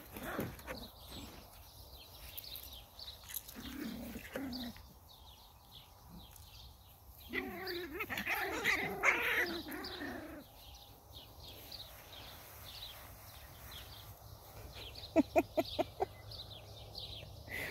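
Six-week-old miniature schnauzer puppies whining and yipping as they play, loudest about eight to ten seconds in, with a quick run of short yaps about fifteen seconds in. Birds chirp in the background.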